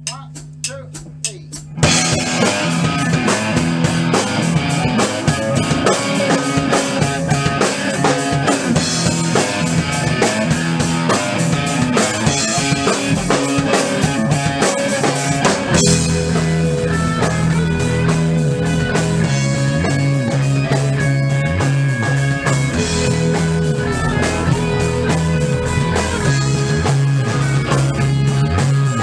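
Rock band playing in a rehearsal room: a few sharp stick clicks count in, then the full band comes in about two seconds in with drum kit, bass and guitar and plays on.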